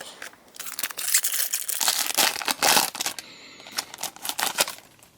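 Foil Pokémon card booster pack wrapper being torn open and crinkled by hand, an irregular crackling rustle that dies away shortly before the end.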